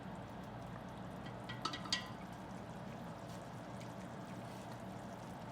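Tomato sauce simmering in a pan on low heat, a steady liquid bubbling and hiss. About a second and a half in come a few short ringing clinks, like metal on metal.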